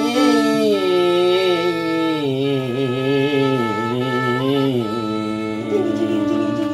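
Violin bowed in the Minangkabau rabab style: a slow, ornamented melody with sliding, wavering notes over a steady held tone. The melody bends most in the first five seconds, then settles.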